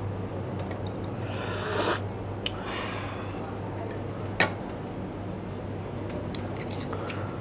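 Metal spoon scraping and clicking against a blood cockle shell, with one sharp tick a little past the middle and light scattered ticks, over a steady low hum. About a second in there is a short, louder breathy rush, the loudest sound here.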